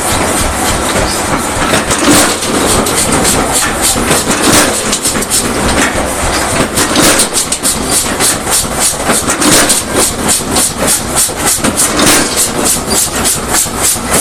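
Rapid, even hammer blows on a steel Damascus billet being forged, about three to four strikes a second.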